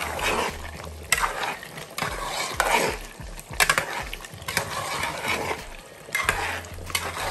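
Metal spoon stirring and scraping through a thick meat curry in a metal cooking pot, in repeated strokes, with the spoon knocking against the pot a few times. The spiced gravy sizzles lightly underneath as freshly added ground masala is mixed in and fried into the meat.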